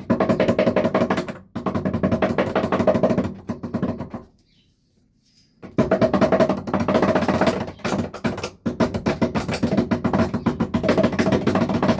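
Background music with a fast, dense drum beat over steady tones; it breaks off for about a second and a half around four seconds in, then starts again.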